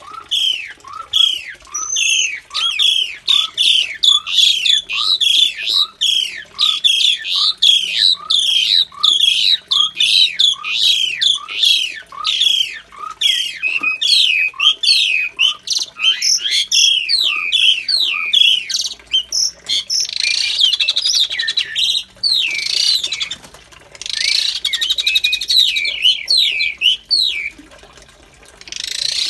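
Javan pied starlings (jalak suren) calling: a fast, steady run of short, repeated calls, about three every two seconds. After about twenty seconds this gives way to two stretches of harsher, noisier chattering.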